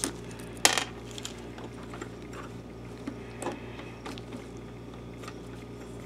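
Small, sparse clicks and light taps from gloved hands handling a plastic projector lamp connector and a metal screwdriver, the sharpest click a little under a second in, then fainter ticks every second or so over a low steady hum.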